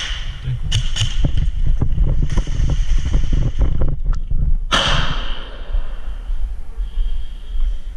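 Irregular sharp clicks and knocks over a constant low rumble during an airsoft game, with one loud sudden burst about five seconds in that dies away over about a second.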